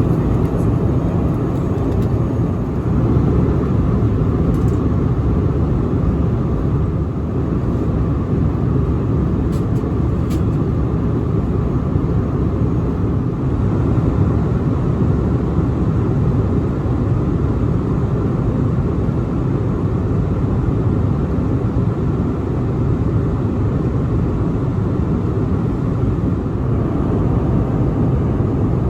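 Airbus A321-200 cabin in flight: a steady roar of the engines and rushing air, heard from a window seat in the rear of the economy cabin.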